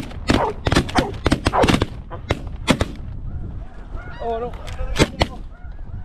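A rapid volley of shotgun shots from several hunters, about a dozen sharp reports in the first three seconds. Snow geese call from the flock a little after the middle, over low wind rumble on the microphone.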